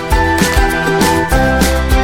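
Background music: an upbeat track with a steady beat and bright, tinkling melody notes.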